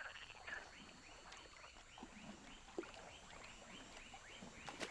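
Faint wetland ambience: a small animal's short chirping calls repeating evenly, about three a second, with a few soft clicks.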